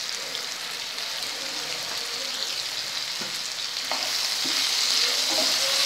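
Cubed potatoes frying in hot oil in a pan: a steady sizzle. A spatula scrapes the pan as it stirs them in the second half, where the sizzle grows louder.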